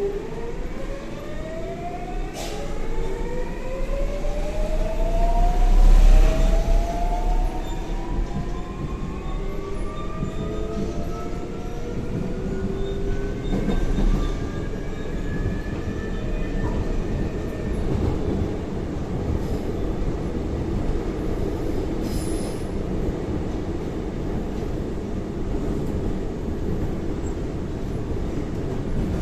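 GTO VVVF inverter and traction motors of a Seoul Line 4 4000-series electric train (Daewoo–Alstom) whining in several tones that climb together in pitch as the train accelerates away from a station, over the rumble of wheels on the rails. The rising whine fades out after about 17 seconds, leaving steady running noise.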